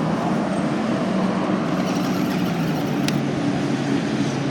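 Steady low mechanical drone of a motor running nearby, over an even outdoor background noise, with a faint click about three seconds in.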